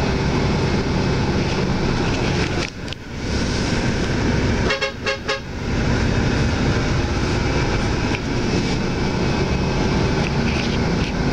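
Steady drone of a Hyundai Universe coach moving in traffic, heard from inside the cabin. About five seconds in, a vehicle horn sounds three quick toots.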